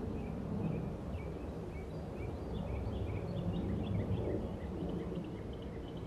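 Small birds chirping, many short high chirps that come quicker and denser from about halfway through, over a steady low background rumble.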